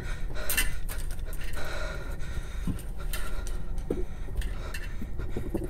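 A person breathing heavily, with a few small clicks and knocks.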